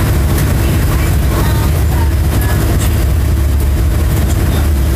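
Steady low road and engine rumble of a car driving along, heard from inside the moving car.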